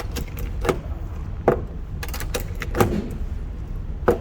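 A handgun magazine being loaded with a speed loader: about six sharp, irregular clicks as rounds are pushed down into the magazine.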